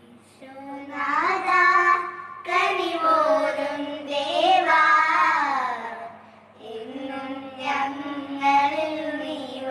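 Children singing a Malayalam Christian devotional song together, in phrases with a short break about six seconds in.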